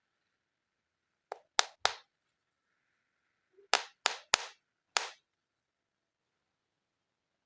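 Seven sharp, short clacks of hard objects striking each other or a surface, in two quick groups: three about a second in, then four more a couple of seconds later.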